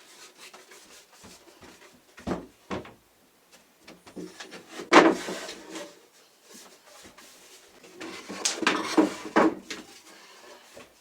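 Wooden bed parts being handled: two sharp knocks, then a loud scrape about halfway through and a longer run of scraping and knocking near the end.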